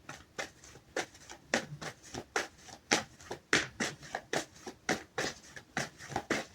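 Deck of tarot cards being shuffled by hand: a run of quick card slaps and flicks, about two or three a second.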